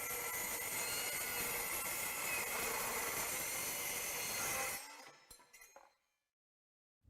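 DeWalt DCS373 cordless metal-cutting circular saw with a 30-tooth carbide blade cutting through metal, a steady high whine over a harsh cutting noise. The noise stops almost five seconds in, then fades with a few clicks.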